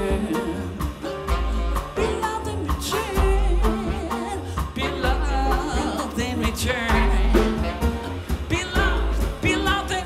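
Live jazz band: an upright double bass plays long, deep, sustained notes under a sung line with vibrato and other instruments accompanying.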